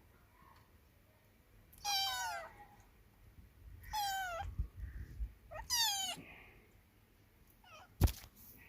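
A cat meowing three times, about two seconds apart, each meow falling in pitch. Low thumps fall between the second and third meows, and a single sharp click comes near the end.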